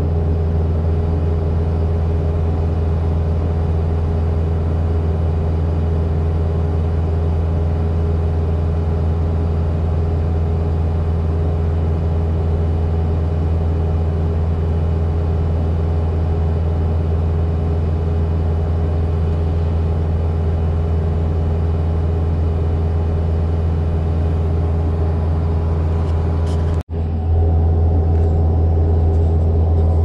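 Kubota SVL95-2s compact track loader's diesel engine running steadily at a constant speed, a low even drone heard from inside the cab. Near the end the sound cuts out for an instant and comes back a little louder.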